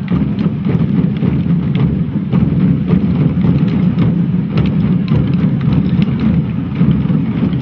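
Many Chinese barrel drums beaten together by a marching drum troupe: a dense, continuous rumble of overlapping strokes with no clear single beat.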